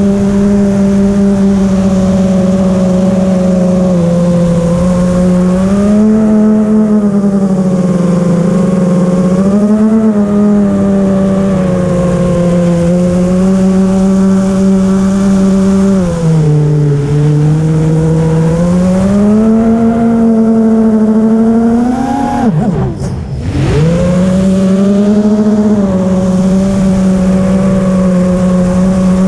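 FPV quadcopter's brushless motors and propellers, picked up by the onboard camera: a steady whine whose pitch rises and falls as the throttle changes. About three-quarters of the way through, the pitch climbs sharply, then drops away steeply as the motors slow and the sound dips, before they spin back up a second later.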